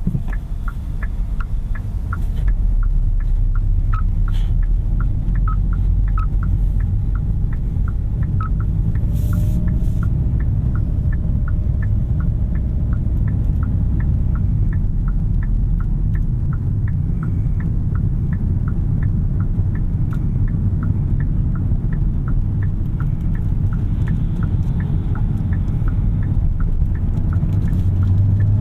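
Cabin of a 2021 Kia K5 Hybrid on the move: a steady low road and tyre rumble, with the turn-signal indicator ticking evenly, a little under two ticks a second, as the car signals for a right-hand turn onto the expressway entrance.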